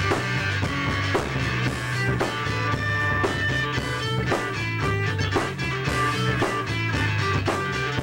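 Small band jamming: acoustic guitar played over a drum kit keeping a steady beat, with keyboard.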